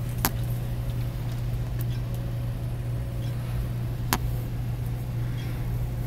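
Steady low machinery hum on a construction site, with two sharp metal clanks, one just after the start and another about four seconds later, as a steel beam is guided into place.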